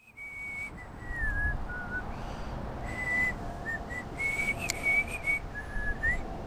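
A person whistling a slow, wandering tune of held notes that dip lower in pitch and then rise again, over a steady low background rumble.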